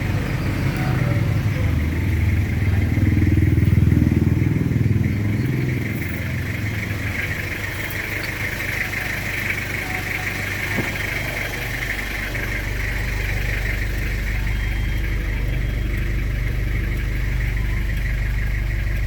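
Toyota 2C diesel engine idling with a steady clatter, briefly rising in speed and level about three to five seconds in before settling back to idle.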